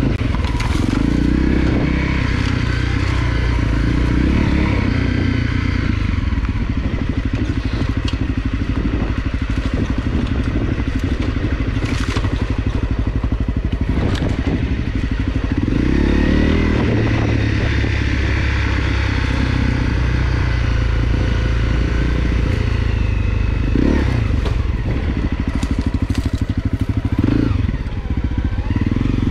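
Honda CRF250L's single-cylinder four-stroke engine running off-road, its note stepping up and down with the throttle. Occasional knocks and clatter can be heard over it.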